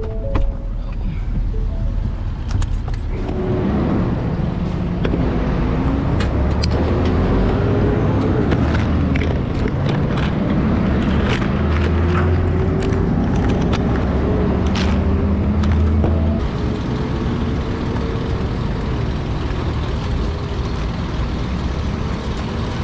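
Tow truck's engine running, louder from about three seconds in until about sixteen seconds, its pitch slowly rising and falling, with scattered clicks and knocks.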